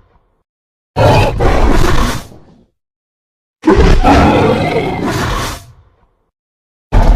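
Monster roar sound effects: a short roar about a second in, a longer roar a little before the middle, and another roar starting just at the end, with dead silence between them.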